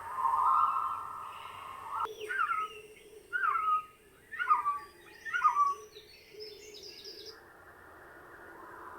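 Birds calling: a series of about five short, downward-slurred calls roughly a second apart, overlapped by higher, quicker chirps. The calls start after a steady tone that ends abruptly about two seconds in.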